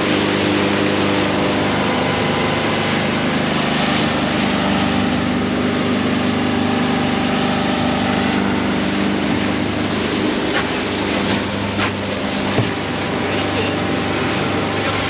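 Motorboat engine running steadily under way, with wind and water rushing over it. A few short knocks come near the end.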